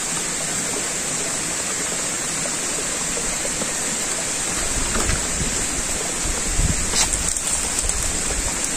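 Babbling stream running over rocks: a steady rush of water. A few brief knocks and rustles of handling come about five and seven seconds in.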